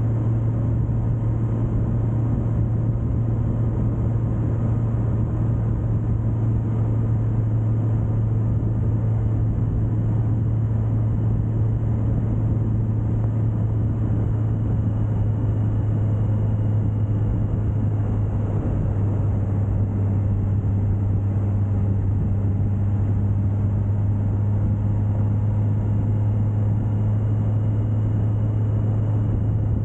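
Suzuki GSX1250FA's inline-four engine running steadily at cruising speed, a constant low drone mixed with wind and road noise.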